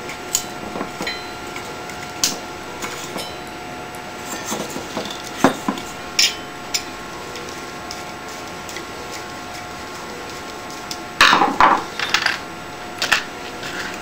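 Small metal parts and hand tools being handled: scattered clicks, taps and light metallic clatter, with a louder burst of knocks and rattles about eleven seconds in. A faint steady hum runs underneath.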